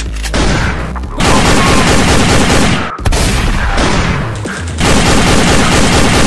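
Rapid automatic gunfire sound effects in long, dense bursts, dubbed over toy foam blasters being fired, with a short break about three seconds in. Background music with a low bass runs underneath.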